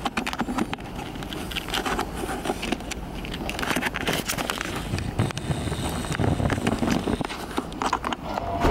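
Scattered clicks, knocks and rustling in a darkened hall, with some faint muffled murmuring.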